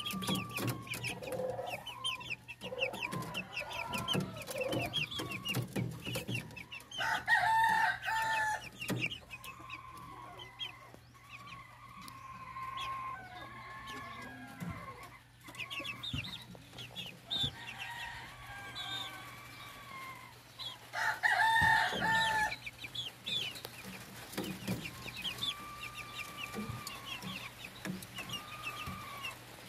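Young gamefowl chickens, black and Sweater–Roundhead crosses, clucking and peeping in a wooden coop. The sound is a run of quick high chirps with some longer drawn-out calls. Two louder, longer calls stand out, one about a quarter of the way in and one about two-thirds through.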